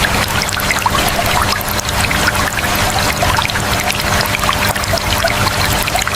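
Water running and trickling steadily, full of small bubbling plinks, over a faint steady hum.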